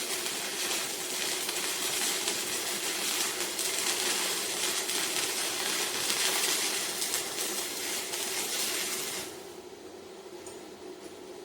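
Stick-welding arc from a 3/32" E6013 electrode on a MIGVAN M140 inverter welder, crackling steadily, then breaking off suddenly about nine seconds in.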